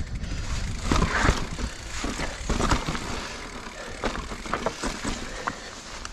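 2021 Giant Reign Advanced Pro 29 full-suspension mountain bike riding over rocky dirt singletrack: tyres crunching over dirt and rock, with irregular clattering knocks from the bike over bumps and a low wind rumble on the microphone.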